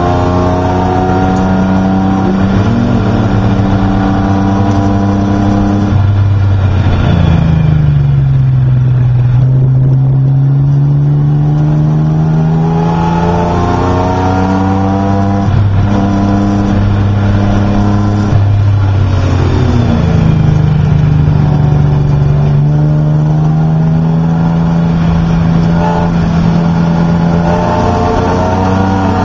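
Race car engine heard from inside the cockpit under load, its note steady, then dropping sharply about seven seconds in and again about twenty seconds in, each time climbing slowly back up as the car accelerates.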